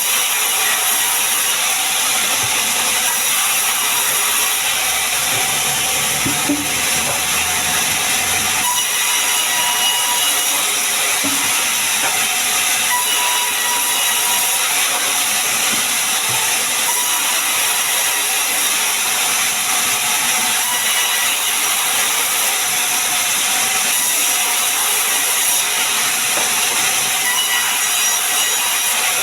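Sawmill saw running and cutting sengon wood: a steady, loud, hissing noise.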